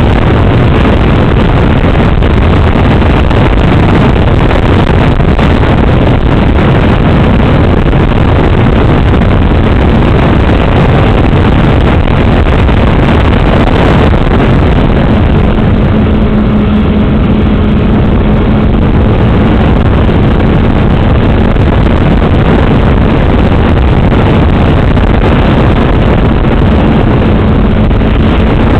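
Loud motor and propeller noise of an FPV model aircraft in flight, heard through its onboard camera's microphone with heavy wind rush. A steady low drone stands out from about halfway through.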